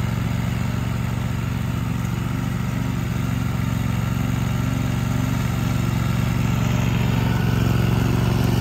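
Zero-turn riding lawn mower's engine running steadily as it mows, a low, even hum that grows louder near the end as the mower comes closer.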